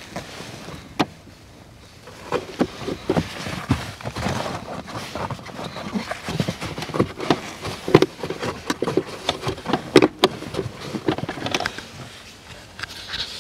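A new carbon cabin air filter being handled and slid into its plastic housing: a busy run of knocks, clicks and scraping that starts about two seconds in and stops near the end.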